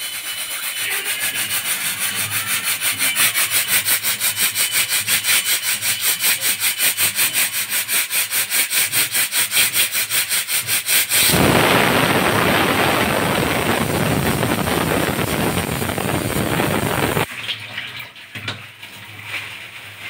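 Aluminium stovetop pressure cooker letting off steam past its whistle weight: first a hiss spurting in quick pulses several times a second, growing louder, then about eleven seconds in a loud continuous whistle of escaping steam that lasts about six seconds and cuts off suddenly. The whistle is the sign that the cooker has reached full pressure.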